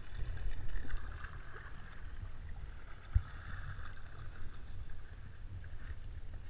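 Lake water sloshing and splashing right at the microphone: a muffled, uneven low rumble with a splashing hiss over the first few seconds and one sharp knock about three seconds in.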